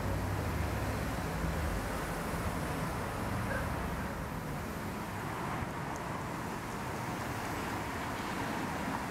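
City street traffic: cars passing on a multi-lane road, a steady wash of tyre and engine noise, with the low rumble heaviest in the first second or so.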